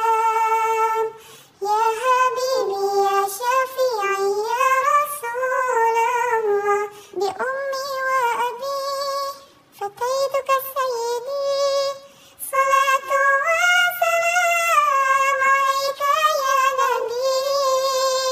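A high-pitched, synthetic child-like voice singing an Arabic naat in long phrases that waver in pitch, with short pauses between the phrases.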